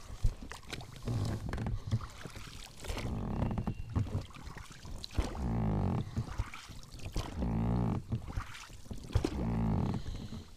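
Rowboat oars working in their oarlocks: a low creaking groan with each stroke, about five strokes one and a half to two seconds apart, with water splashing off the blades.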